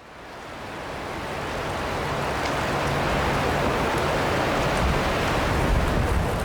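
Wind blowing, with gusts buffeting the microphone as a low, uneven rumble under a steady rushing hiss; it swells in gradually over the first couple of seconds.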